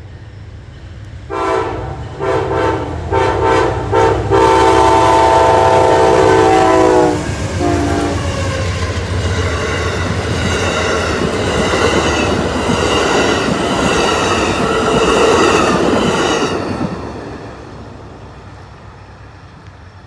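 Amtrak passenger train's horn blown in a quick series of short blasts, then one long blast whose pitch drops as the locomotive passes. Then the cars roll by with wheels clattering over the rails, fading away near the end.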